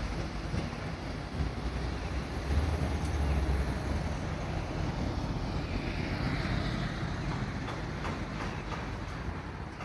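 City road traffic: a steady wash of cars and buses passing below, with a heavier low rumble about two and a half seconds in.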